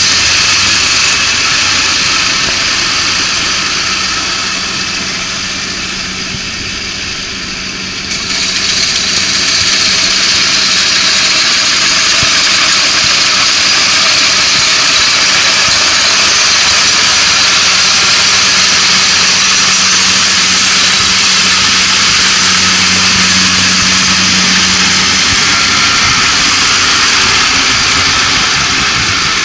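Kubota ARN460 combine harvester's diesel engine and threshing machinery running steadily as it cuts and threshes lodged rice, a low engine hum under a wide hiss. The noise dips a little, then swells suddenly about eight seconds in.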